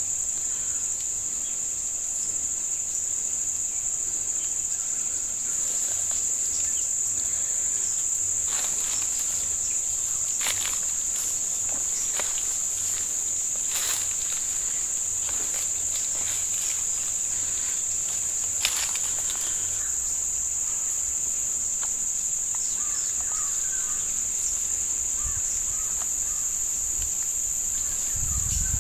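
Steady, high-pitched drone of an insect chorus in forest undergrowth, with a few sharp cracks of twigs and branches snapping and brushing as someone pushes through.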